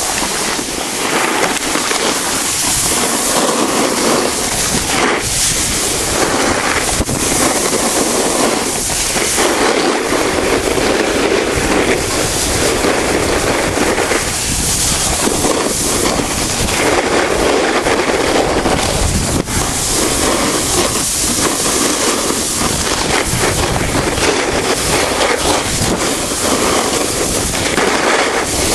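A snowboard sliding and scraping over packed snow at speed, mixed with wind buffeting the microphone: a loud, crackling rush that swells and eases every few seconds.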